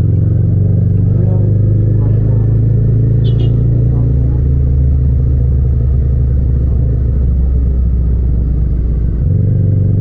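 Yamaha MT-07's parallel-twin engine running steadily at part throttle in third gear, heard from the rider's seat with little wind noise. A brief high chirp comes about three seconds in, and the engine note changes about nine seconds in.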